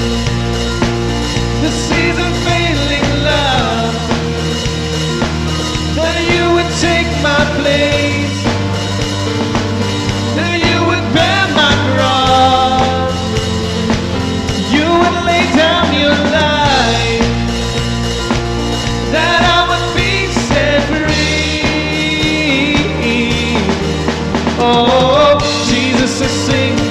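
Worship song played by a band with a bass line and sustained chords, and a voice singing over it.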